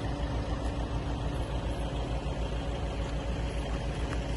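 An engine idling steadily, with an even low pulse.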